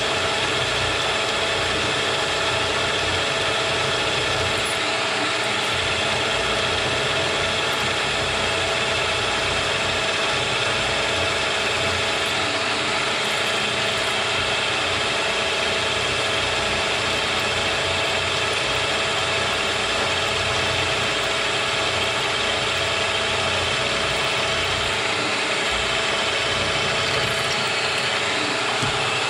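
Milling machine running steadily while drilling into a steel shaft, its spindle gearing giving a continuous steady whine.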